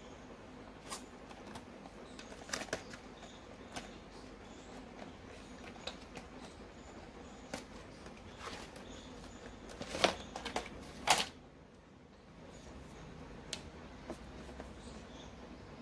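Light clicks and taps of a marker pen and paper card being handled on a table, coming irregularly every second or so, with two louder clatters about ten and eleven seconds in, over a faint steady hum.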